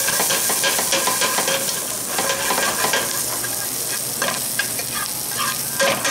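Sliced green onions sizzling in hot oil and leftover togarashi spice in a sauté pan, tossed with metal tongs that click and scrape against the pan, with one louder knock near the end.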